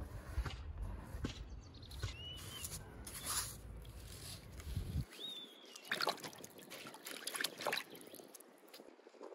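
Water trickling and sloshing in a wooden bowl as salt is mixed into it to make a brine, with small splashes and clicks in the second half. A bird chirps twice.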